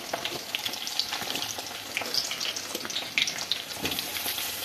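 Chopped capsicum and onion frying in oil in a kadhai, a steady crackling sizzle with many small pops.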